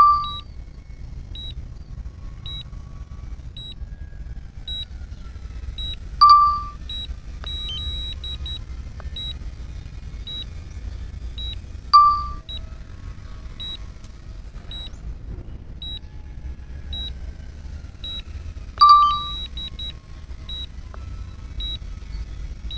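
Drone remote controller sounding warning beeps: a loud beep roughly every six seconds, with fainter short high ticks in between, the alert that goes with the drone's repeatedly lost signal. Under it runs a low steady rumble.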